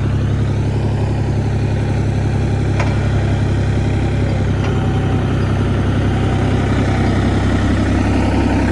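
Engine idling steadily, with two short knocks about three and four and a half seconds in.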